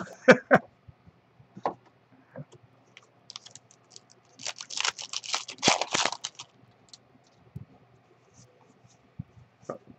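Plastic wrapper of a baseball card pack crinkling and tearing open for about two seconds in the middle, with scattered light taps and clicks of cards being handled.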